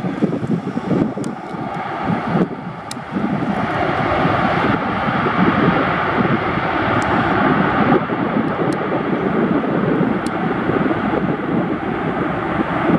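Twin CFM56-7B jet engines of a Boeing 737-800 roaring as the airliner rolls out on the runway just after touchdown, the noise swelling about three seconds in and holding loud.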